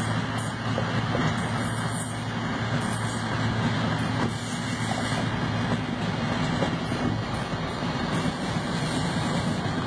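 Steady road and wind noise of a car driving alongside a moving freight train, with the train's rolling noise mixed in.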